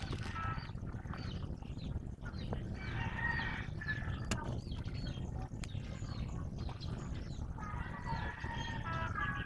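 Roosters crowing, with two longer crows about three seconds in and near the end, amid many short chirps of small birds over a steady low rumble.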